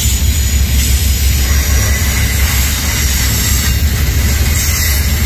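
Double-stack intermodal container train rolling past: a steady, loud rumble and rolling rail noise from the well cars' wheels on the track.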